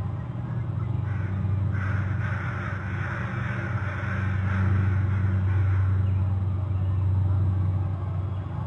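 Harsh bird calls for about four seconds, starting about a second in, over a steady low drone.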